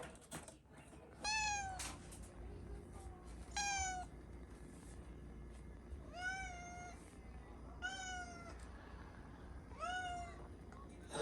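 Domestic cat meowing five times, about two seconds apart; each meow is a short call that falls in pitch at its end.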